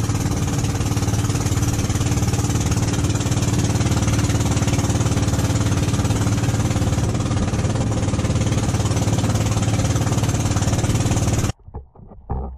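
A bangka outrigger boat's engine running steadily underway, a loud rattling drone with water rushing along the hull. It cuts off abruptly near the end, giving way to faint underwater sloshing.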